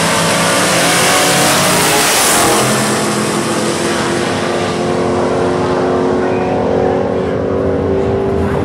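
Two drag-race cars launching side by side at full throttle and running down the strip. The engine noise is loudest and harshest in the first two to three seconds, then turns duller and steadier as the cars pull away.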